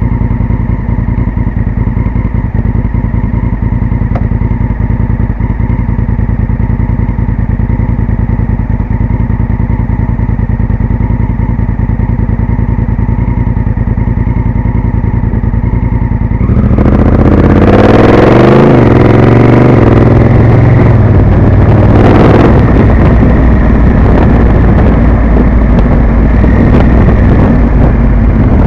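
Honda Africa Twin CRF1000's parallel-twin engine idling steadily. About two-thirds of the way through it revs up sharply as the motorcycle pulls away and accelerates, and the rush of wind grows as it rides on.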